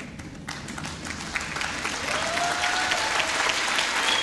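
Audience applauding, the clapping growing louder over the first two seconds and then holding steady.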